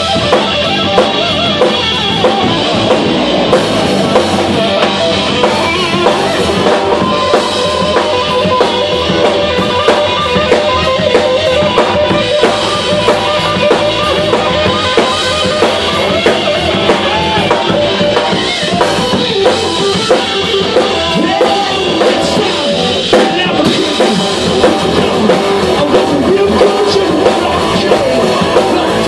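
Rock band playing live: electric guitar, electric bass and drum kit with a steady driving beat.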